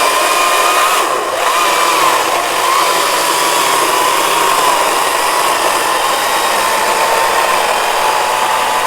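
GreenWorks Commercial battery chainsaw running at speed: a steady electric whine whose pitch sags slightly as it goes on.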